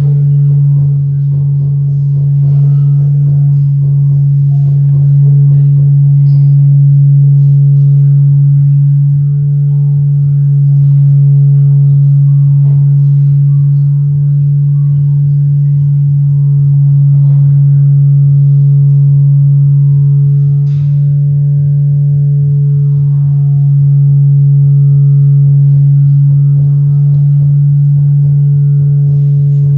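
Live ambient drone music from a double bass and electronics played through an amplifier. A loud, steady low drone holds without a break, with quieter sustained higher tones fading in and out above it.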